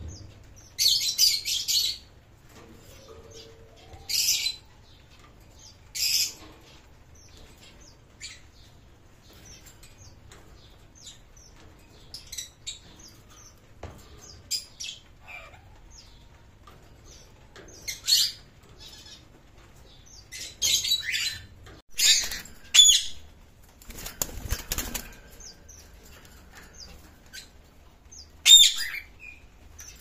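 Caged parakeets giving short, harsh, high-pitched screeches in scattered bursts, about ten in all, with wing flapping in the cage.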